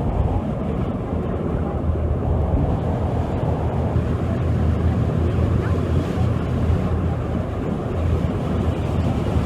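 Wind buffeting the microphone aboard a moving harbour ferry, over a steady low rumble of the ferry's engine and water rushing past the hull.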